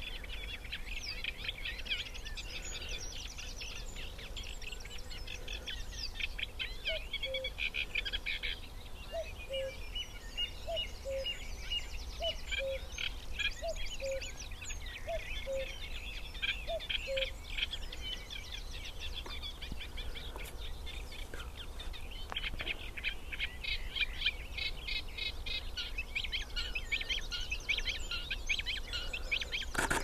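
Reed warbler singing its long chattering song of fast, repeated scratchy notes. From about seven seconds in, a common cuckoo gives its falling two-note 'cuck-oo' about ten times, roughly once a second, then stops.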